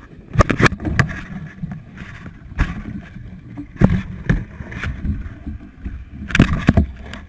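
Close handling noise on a camera strapped to a cargo bundle: irregular knocks, clicks and rubbing as the nylon webbing strap and its buckle are gripped and pulled, over a low rumble.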